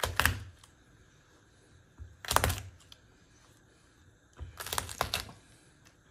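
Chef's knife on a plastic cutting board, pressing and chopping Persian cucumber pieces: three short bursts of clicky knocks about two seconds apart.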